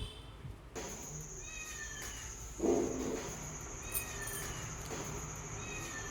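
A cat meows once near the middle, over a steady high insect drone and a few short high chirps.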